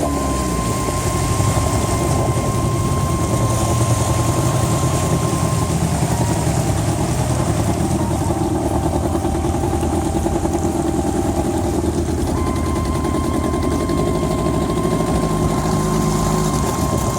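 An engine running steadily, with a thin high whine that drops out about six seconds in and comes back about twelve seconds in.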